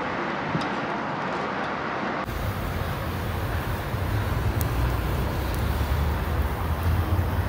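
Grilled kibbeh, stuffed with minced meat and lamb fat, sizzling on a wire rack over hot charcoal, with a few faint crackles. The sizzle comes from the fat in the filling melting and oozing, the sign the cook looks for in well-made grilled kibbeh. About two seconds in, a steady low rumble comes in under the sizzle.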